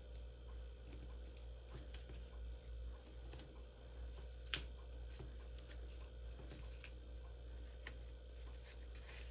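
Faint light clicks and rustles of small die-cut paper pieces being handled and set down one by one on a craft mat, with one sharper click about four and a half seconds in, over a steady low hum.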